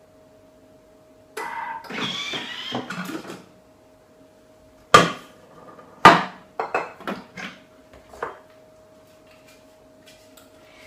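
Thermomix TM5 being opened after a mixing run. A couple of seconds of rattling are followed by two sharp, loud clacks about a second apart as the lid comes off and the stainless-steel mixing bowl is lifted out of the base, then several lighter knocks. A faint steady hum runs underneath.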